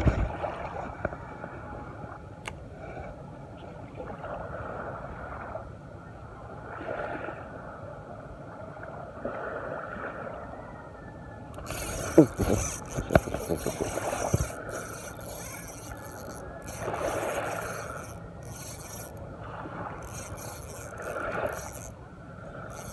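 Spinning reel being cranked on an ultralight rod, its rasping retrieve starting about twelve seconds in and stopping and starting in spurts. A cluster of sharp clicks and knocks comes as the cranking begins. This is typical of reeling in a hooked fish.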